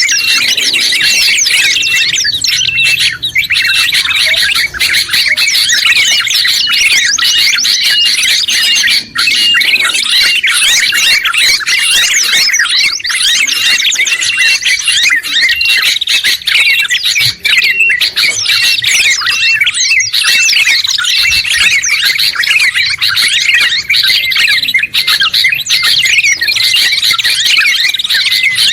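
Several songbirds singing and chirping at once in a dense, continuous layered chorus of high trills and calls, with a short note repeating rapidly through the first half.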